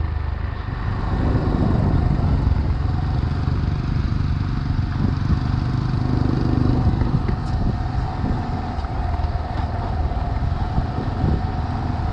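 A 125 cc motorcycle engine running steadily while riding, with wind and road noise.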